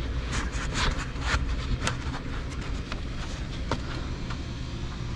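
Scattered knocks and rustles from a refrigerant pipe and cables being handled and straightened overhead in a ceiling space, over a steady low hum.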